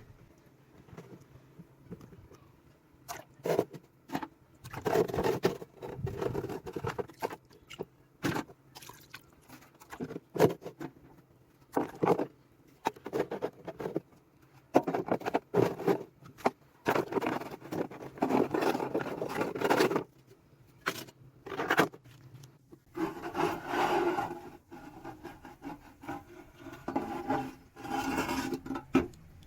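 Irregular scraping and rubbing strokes from hand work on an old steel toolbox, broken by scattered sharp clicks and knocks, with the busiest scraping in the middle and late part.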